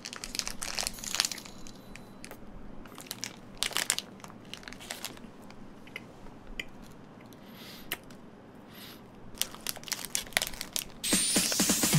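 Plastic wrapper of a Choco Pie crinkling in short, irregular crackles as it is torn open and handled. About a second before the end a loud, steady hiss cuts in suddenly.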